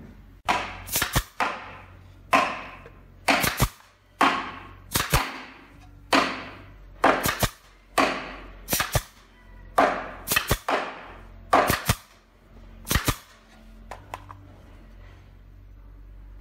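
Pneumatic nail gun firing nails into a mitred wooden corner joint, about a dozen shots roughly a second apart, each a sharp snap with a short hiss of air. The shots stop about three seconds before the end.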